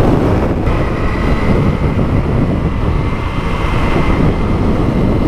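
Wind rushing over the microphone of a Honda CRF250L motorcycle at road speed, with the bike's single-cylinder engine running underneath. The noise is steady and loud throughout.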